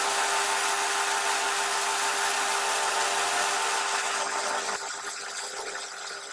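Metal lathe running with a strip of abrasive cloth held against the spinning shaft of a flour-mill stone wheel, a steady abrasive hiss over the lathe's hum as the bearing seat is polished. The hiss drops away about four and a half seconds in, leaving the lathe running more quietly.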